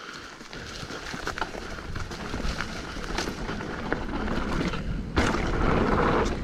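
Hardtail mountain bike rolling fast down a dirt trail into a jump line, with tyre noise and wind rush growing louder as speed builds and scattered clicks and rattles from the chain and frame. The rush swells suddenly about five seconds in.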